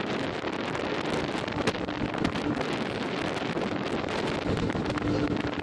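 Wind rushing over the microphone along with the rattling and clattering of a fairground ride in motion, a steady noisy rush broken by many quick clicks.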